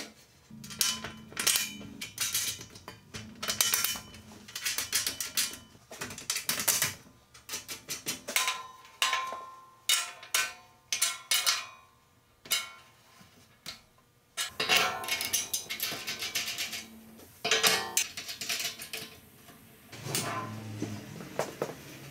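Irregular metallic clinks, clanks and rattles as the metal stand of a JET 18-36 drum sander is put together: bolts and washers being fitted and tightened with a wrench and the steel legs and shelf knocking together. Background music plays underneath.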